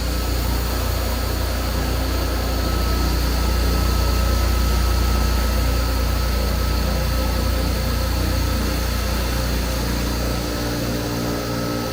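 Horizontal foam-cutting machine running: a steady low motor hum with a thin steady whine above it. The low hum drops away about ten and a half seconds in.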